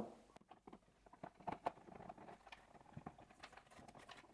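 Faint, scattered clicks and taps of hands handling the wing and fuselage of a composite RC flying wing as the second wing is fitted onto the fuselage.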